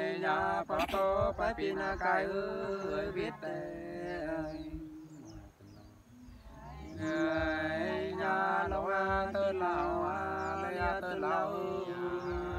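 Unaccompanied Nùng sli folk singing: a voice holding long, wavering, ornamented notes in two phrases, with a break of about a second and a half in the middle.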